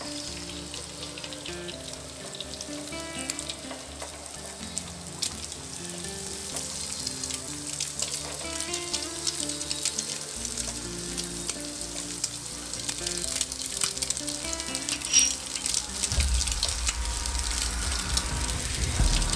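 Egg, chopped onion and garlic sizzling and crackling in hot oil in a nonstick frying pan as a silicone spatula breaks up and stirs them, getting louder near the end.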